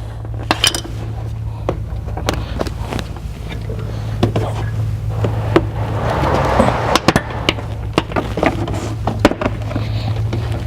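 Scattered clicks and knocks of plastic interior trim panels and clips being worked loose by hand, with a rustling scrape about six to seven seconds in. A steady low hum runs underneath.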